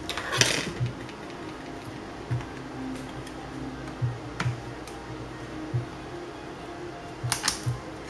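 Sharp plastic clicks and taps as a laptop's DDR3 RAM module is pushed into its slot and pressed down, the loudest about half a second in and a quick group of clicks near the end, over faint background music.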